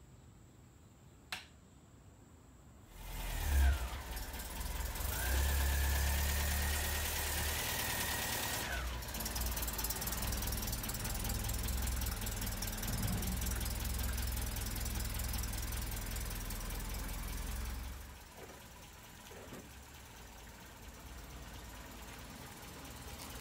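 MGB sports car's four-cylinder engine starting about three seconds in and then running, with a steady high whine over it for a few seconds; the sound drops to a lower level near the end.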